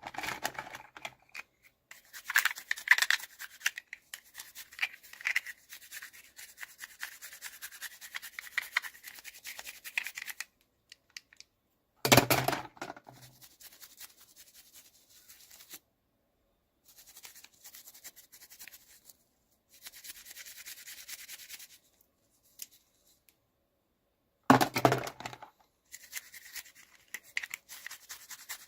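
Hands unboxing miniature toys: scratchy rustling, rubbing and small clicks of the packaging, broken twice by a sharp loud knock, about halfway through and near the end.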